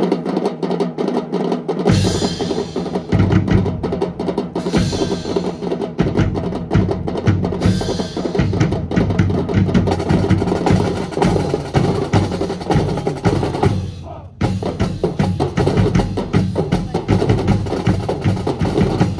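Marching drum section playing a fast cadence on snare and bass drums. The bass drum comes in about two seconds in, there are three brighter crashing accents in the first eight seconds, and the drumming breaks off briefly about three-quarters of the way through before resuming.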